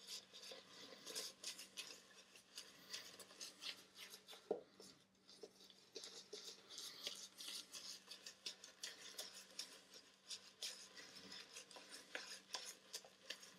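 Phoenix Artisan Starwisp synthetic shaving brush working tallow-soap lather into a beard: a faint, quick, crackly swishing of many short irregular brush strokes.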